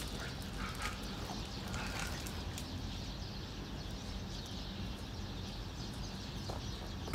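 A cat eating wet food from a paper bowl: faint, scattered chewing and licking clicks over quiet outdoor background noise.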